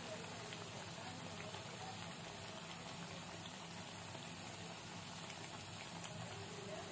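Palak pakoras (spinach fritters) deep-frying in hot oil, a steady sizzling hiss with small scattered pops.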